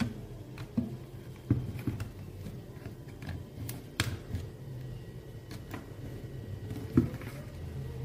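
Hands handling a small plastic handheld vacuum cleaner: scattered sharp clicks and knocks over a low hum.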